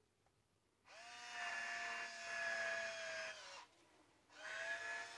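Electric wine opener's small battery motor whining as it drives the corkscrew into the cork. It runs for about two and a half seconds, stops for a moment, then starts again near the end, the pitch rising briefly as each run begins.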